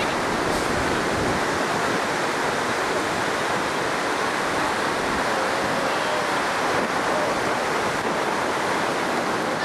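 Steady rushing noise of ocean surf breaking on the beach.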